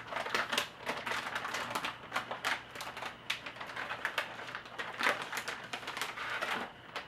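Handling noise as a replacement laptop screen is picked up and brought over: a dense run of irregular clicks and crackles, like plastic packaging and the panel being handled.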